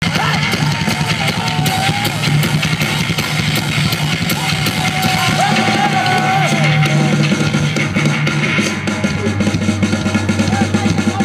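Live rock band playing loud through a PA: busy drum-kit playing with bass drum, electric guitars and bass, with a wavering melodic line over sustained low notes.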